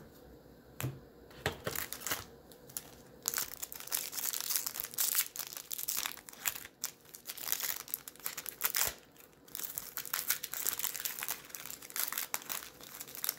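A few light taps in the first two seconds, then the crinkling and tearing of a trading-card pack's plastic wrapper as it is opened, in long crackling runs with short pauses.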